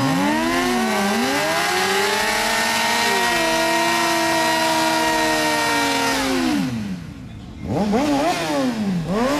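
Sport motorcycle engine revved up and held at high revs during a rear-tire burnout, then dropping off about seven seconds in, followed by a few quick rev blips near the end.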